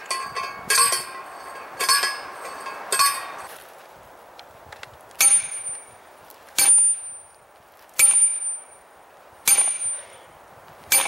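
Steel fence post sleeve being driven into hard ground. First come four ringing metal clangs about a second apart from a post driver, then five sharper hammer strikes about a second and a half apart, each leaving a high ring.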